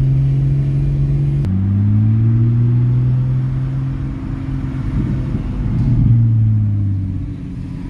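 Car engine and road noise heard from inside the cabin: a steady low drone. Its pitch changes suddenly about a second and a half in and drops near the end.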